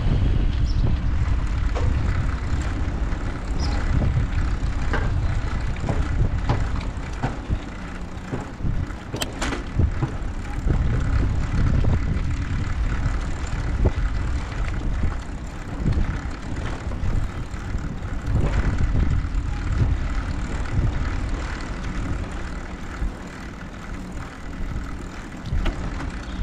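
Low, uneven rumble of wind on the microphone and tyre noise from an ICE Adventure HD recumbent trike rolling along a tarmac road, with a single sharp click about nine seconds in.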